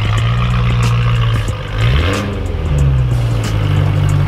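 BMW E90 M3's 4.0-litre V8 with an iPE aftermarket exhaust running as the car moves off at low speed, with a short rise in revs about two seconds in. Background music plays along with it.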